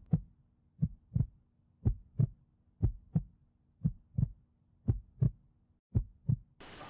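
Heartbeat sound effect: pairs of low thumps in a lub-dub pattern, about one beat a second, seven beats in all.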